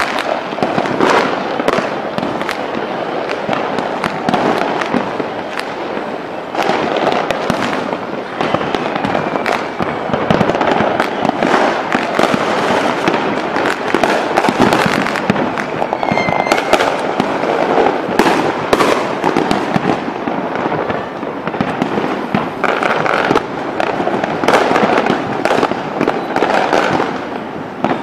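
Aerial fireworks display: shells bursting without pause in many overlapping bangs and crackles.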